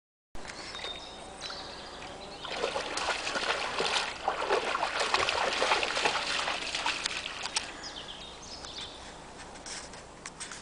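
Weimaraner wading and splashing through shallow swamp water, loudest in the middle few seconds, then easing to quieter sloshing and trickling.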